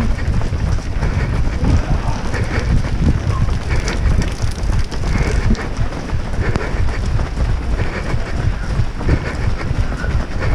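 Wind buffeting the microphone of a GoPro Hero5 Session worn by a running racer, heard as a loud, steady, deep rumble.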